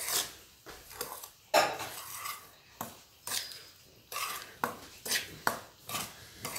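Steel spoon stirring dry flour in a metal pan, scraping through the flour and clinking against the pan's sides and rim in sharp, irregular strokes about twice a second.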